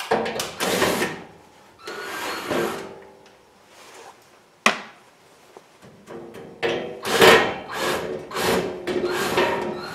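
Louvred sheet-metal front panel of a propane unit heater scraping and rubbing as it is unbolted and worked loose by hand, in several bursts, with one sharp click about halfway through.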